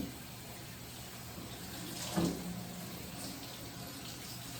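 Kitchen faucet running into the sink as a whole raw chicken is rinsed under it. There is a brief louder sound about two seconds in.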